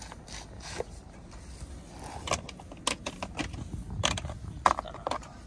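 Plastic rice seedling trays clattering as they are handled and set down on the transplanter, a run of sharp clicks and taps over a low rumble, busiest in the second half.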